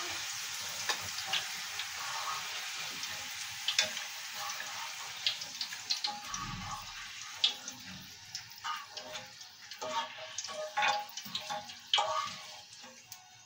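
Oil sizzling in a frying pan of chips (French fries), with a utensil clicking and tapping against the pan and plate as the chips are lifted out. The sizzle fades over the second half, leaving mostly the taps.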